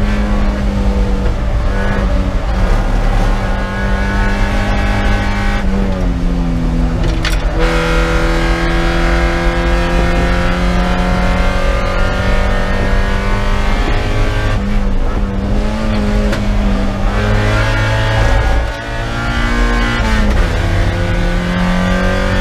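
Spec Miata's four-cylinder race engine, heard from inside the cockpit, running hard through corners. Its pitch drops about six seconds in as the car slows, climbs again steadily, dips briefly near the end, then rises as the car accelerates.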